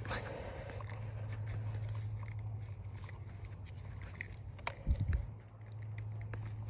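Hands working a plastic oxygen-sensor wiring connector under the hood, pressing and wiggling it to release it. The noises are scraping, a sharp click a little before five seconds in and a low thump just after it, over a steady low hum.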